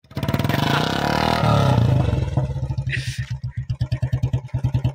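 Royal Enfield Classic 350's single-cylinder engine revving hard with the rear wheel spinning in mud, then dropping back about halfway through to an even thump of separate beats, about eight a second.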